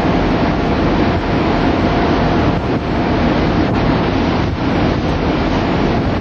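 Steady wind blowing across the camcorder microphone on a ship's deck at sea, with the rush of the sea under it.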